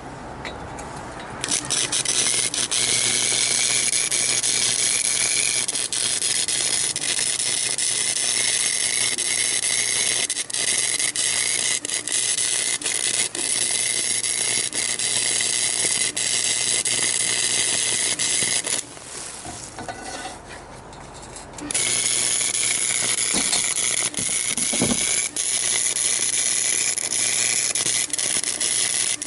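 A wire brush scrubbing rusty square steel tubing: a steady high scraping hiss with many short clicks, which pauses for about three seconds about two-thirds of the way through.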